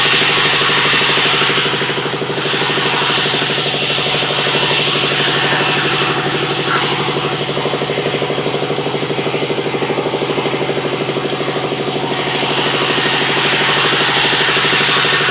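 Sawmill machinery running steadily, an engine drone under a high hiss. The hiss drops away briefly about two seconds in and is weaker through the middle before swelling again.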